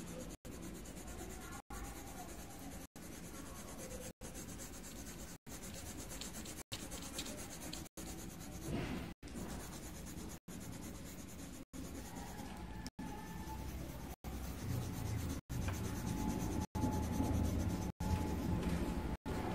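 Colouring pencil scratching on paper in steady shading strokes, the sound cut by brief dropouts about every second and a quarter.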